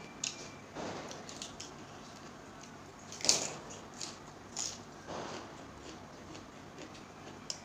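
A person eating rice by hand: a scattering of short, wet chewing and smacking mouth sounds, the loudest about three seconds in.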